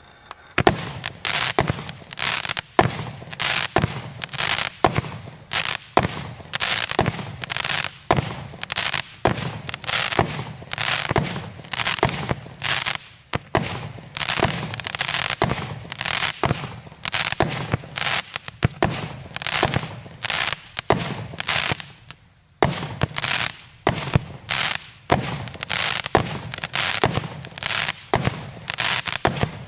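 A 0.6-inch, 80-shot consumer fireworks cake firing in rapid succession. Sharp launch reports and aerial bursts come about twice a second, some followed by crackling. There is a short lull about 22 seconds in.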